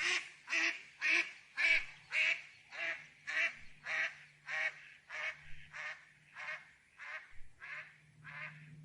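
A bird calling in an even series of short calls, just under two a second, the calls growing fainter toward the end.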